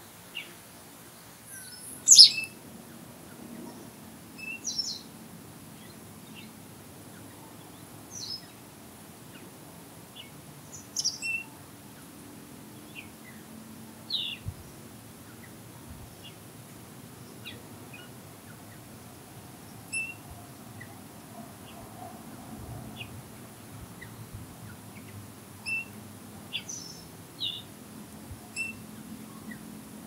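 Small songbirds calling: scattered short, high chirps and whistles every second or two, the loudest about two seconds in.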